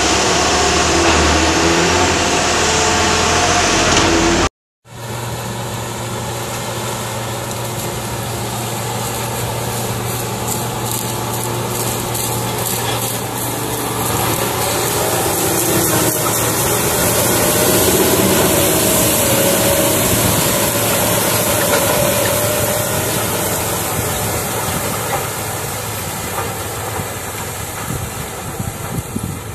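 Large articulated-tractor diesel engines running steadily: first a Case IH Steiger driving along a road, then, after a brief cut about four and a half seconds in, a Case IH Steiger Quadtrac's 12.9-litre six-cylinder two-stage turbocharged diesel working under load pulling a tillage implement. Its drone swells to a peak about halfway through, then slowly fades.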